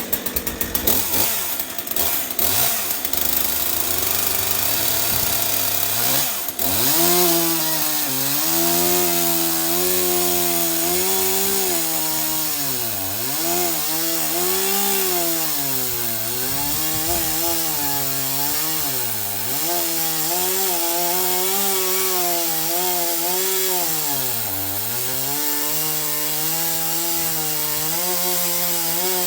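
Stihl MS 201 C-M two-stroke chainsaw running at full throttle as it cuts into a large Douglas fir round. The first few seconds are uneven. After that the engine screams at high revs, its pitch dropping again and again as it bogs under load in the wood and then climbing back.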